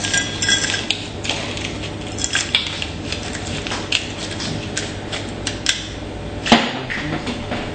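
Crushed ice being scooped into a glass: scattered clinks and scrapes, with one sharper knock about six and a half seconds in.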